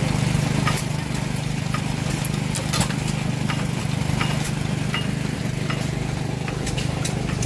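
Antique stationary gas engine running with its flywheels turning: a steady low hum, with occasional sharp metallic clicks.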